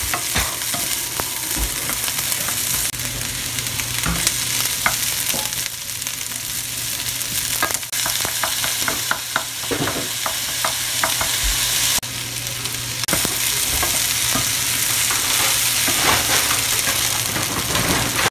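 Diced vegetables and ham sizzling in a hot nonstick frying pan. A wooden spatula stirs them with frequent small clicks and scrapes against the pan.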